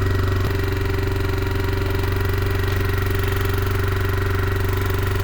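2004 Yamaha Kodiak 450's single-cylinder four-stroke engine running off choke at a steady, fast idle. The idle is set too high: it is "idling to the moon".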